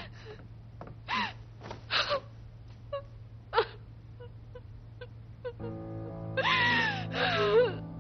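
A woman sobbing and wailing in short, breaking bursts. Soft sad music with sustained notes comes in about two-thirds of the way through, and she keeps crying over it.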